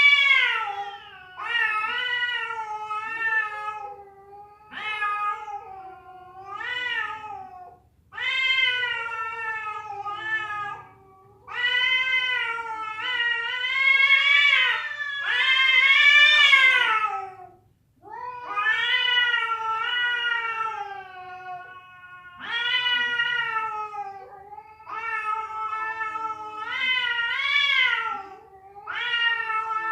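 Cat caterwauling: long, drawn-out yowls that waver up and down in pitch, one after another with short breaks between.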